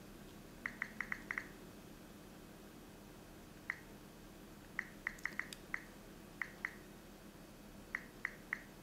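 Key-press clicks from the Samsung Galaxy S3's on-screen keyboard as account details are typed in: about seventeen short, light clicks in irregular bursts, over faint room tone.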